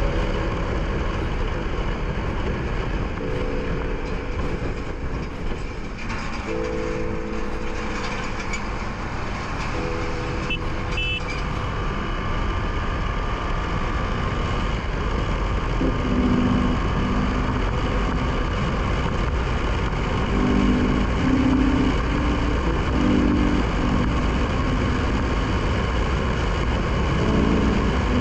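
KTM Duke 390's single-cylinder engine running at road speed under a steady rush of riding noise. A few steady tones hold for a second or two at a time and then shift to a new pitch, several times over.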